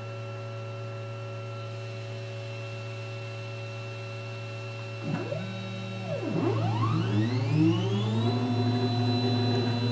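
Sienci Mill One desktop CNC mill's spindle running with a steady hum. About five seconds in, its stepper motors start moving. Their whine gives a couple of short pitch sweeps, then rises in pitch as an axis speeds up and holds steady, and the machine gets louder.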